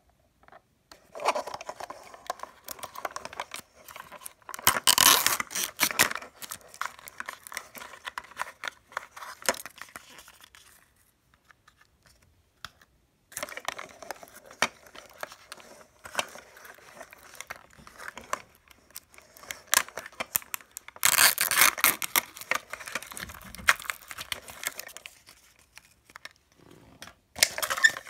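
Mini Brands capsule wrappers being crinkled and torn open by hand, in irregular bursts of rustling and crackling with small clicks, stopping for a couple of seconds about halfway through.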